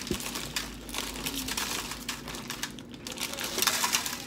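Chip bag crinkling as it is handled, in irregular crackly bursts, loudest near the end.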